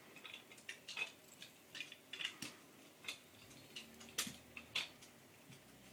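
Irregular light clicks and taps of small hard pieces being handled and set down, several a second.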